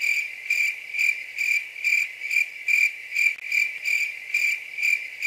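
Cricket-chirp sound effect: one high, steady chirp pulsing about twice a second, starting and stopping abruptly in a gap in the narration, the comic 'crickets' of awkward silence.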